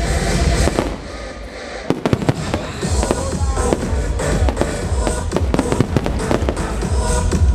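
Fireworks display over music: aerial shells and fountains bang and crackle. After a short lull about a second in, a rapid run of bangs and crackles starts about two seconds in.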